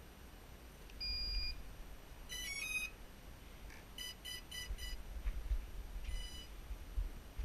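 A quadcopter's brushless ESCs beeping through their power-up sequence after the 4S LiPo is plugged in: a short two-tone beep about a second in, a quick rising run of tones, four short even beeps (the cell count of the 4S pack), then one slightly longer ready beep. A low rumble runs underneath.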